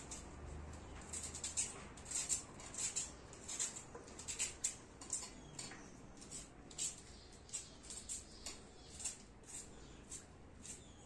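Kitchen knife cutting through a raw onion held in the hand: short crisp crunches, a few a second at an uneven pace.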